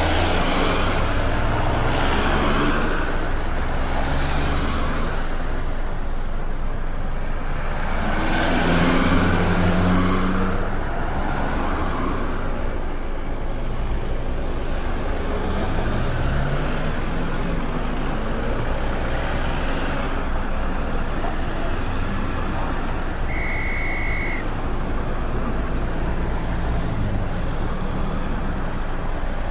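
Busy street traffic: a steady rumble of engines, with louder swells as vehicles pass near the start and about a third of the way in. A short, high, steady beep sounds once, a little past two-thirds of the way in.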